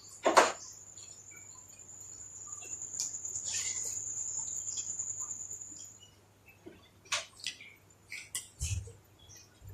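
Close-miked eating sounds: one sharp, loud click just after the start, then wet mouth clicks and smacks of chewing, mostly in the last few seconds. A steady high-pitched tone runs under the first six seconds and then stops.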